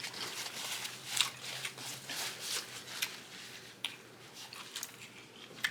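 A person chewing food close to the microphone: irregular wet mouth clicks and soft crunches.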